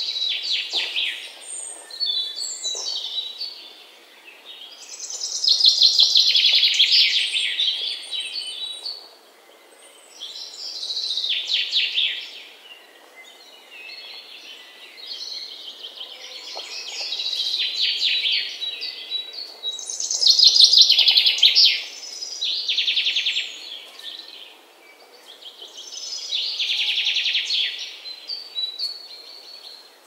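Songbird singing: repeated rapid trilling phrases, each a second or two long, coming every four to six seconds over a faint steady background hiss.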